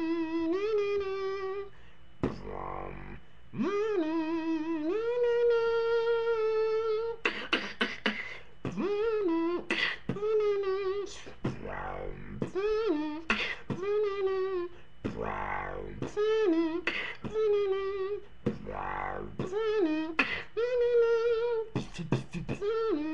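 Dubstep beatboxing: a voice making pitched, wobbling 'wob' bass tones that bend up and down in pitch. About seven seconds in, sharp mouth clicks and snare hits join in as a quick rhythm.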